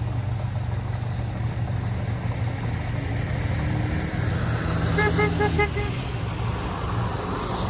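Steady engine and tyre hum of a car driving in rain, heard from inside the cabin. About five seconds in comes a quick run of five short beeps.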